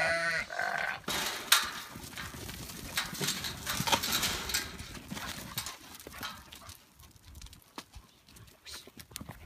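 A flock of sheep trotting out through an opened gate, many hoof steps on dry dirt ground, with a single sharp knock about one and a half seconds in. The hoof steps thin out toward the end.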